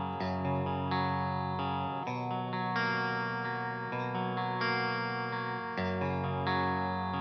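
Electric guitar (ESP LTD JM-II with Monty's Bethnal Green pickups in the middle position) played through a Fryette Deliverance 60 amp on a clean-ish setting. Chords ring out, with a new chord struck about every second.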